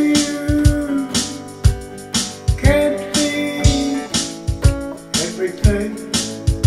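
Instrumental break in a country song: guitar playing over a steady drum beat, with sustained notes that slide in pitch.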